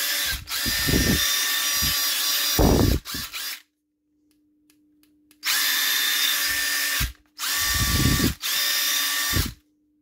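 Makita cordless impact driver running free with no load, in a series of short trigger pulls. There are about six bursts of steady motor whine, each up to a couple of seconds long, with a two-second pause in the middle. The tool is powered by a DeWalt XR 18 V battery through an adapter.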